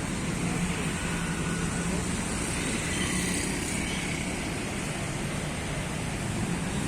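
Steady street traffic noise: engines of passing vehicles running, with an even low hum.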